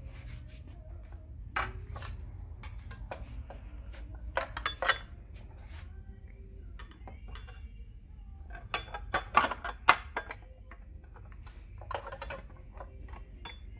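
Irregular clicks, clinks and knocks of the two-piece belt cover being handled and fitted around the handwheel of a JUKI LU-1560N industrial sewing machine, with louder clusters of knocks about four and nine seconds in.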